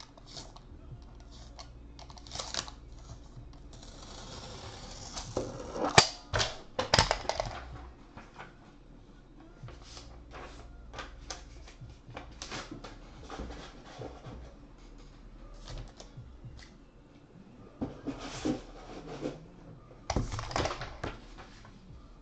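Computer keyboard being typed on, in irregular clicks and taps, with a few louder clacks about six to seven seconds in and a brief hiss just before them.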